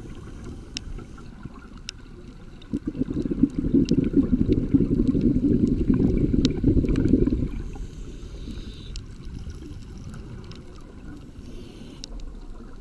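Scuba regulator exhaust bubbling underwater: one exhalation, a burst of low bubbling that starts about three seconds in and lasts about five seconds, with a quieter low hiss either side and scattered sharp clicks.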